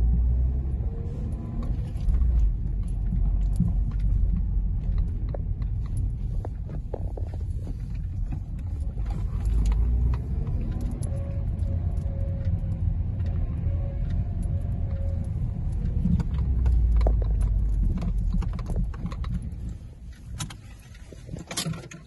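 Inside a car's cabin: a steady low engine and road rumble as the car drives slowly, with scattered light clicks and rattles. The rumble dies down near the end as the car slows.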